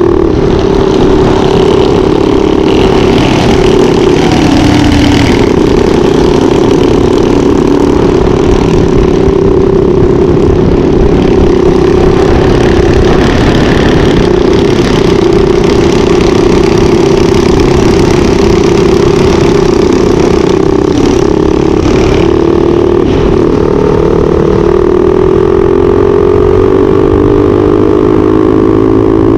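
Mini bike engine running hard at a steady high-speed drone, with heavy wind rush over the microphone. The engine note holds steady, dips briefly a few times, and climbs in pitch near the end.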